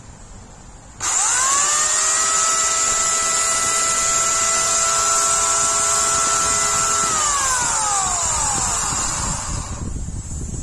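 Corded electric chainsaw switched on about a second in: the motor whirs up quickly to a steady high whine and runs unloaded for about six seconds. Then it is switched off and winds down, falling in pitch over a couple of seconds.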